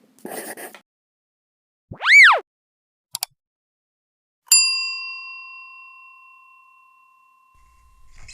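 A quick whistle that sweeps up and back down, a short click, then a single bell ding that rings and fades away over about three seconds.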